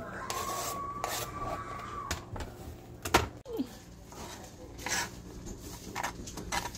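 Knife chopping a bell pepper on a plastic cutting board: scattered knocks of the blade on the board, the sharpest about three seconds in. A faint steady tone sounds through the first two seconds.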